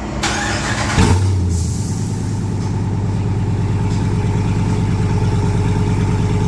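Ram Power Wagon's 392 Hemi V8 starting: it cranks briefly, catches about a second in with a short rev flare, then settles into a steady idle. It runs through a new custom true dual exhaust with an X-pipe and Borla Pro XS mufflers.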